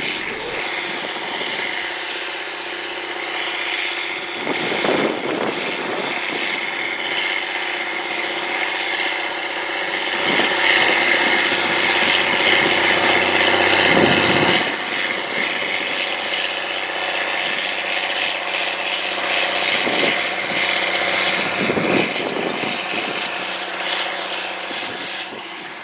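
Cat Challenger MT765C tracked tractor's diesel engine running steadily under load as it pulls a cultivator, a constant drone at even revs with a few short louder rushes of noise over it.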